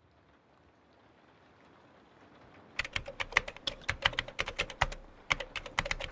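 Soft rain ambience fading in, then laptop keyboard typing starting about three seconds in: quick, irregular key clicks.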